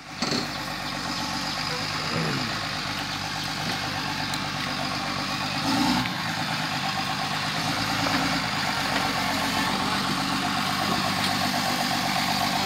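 LiuGong motor grader's diesel engine running steadily at low revs while grading a muddy dirt road, growing slightly louder as the machine comes closer.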